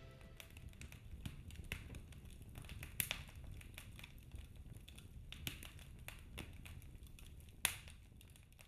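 Wood fire crackling in a fireplace: faint, irregular pops and snaps over a low rumble, with a louder pop about three seconds in and another near the end.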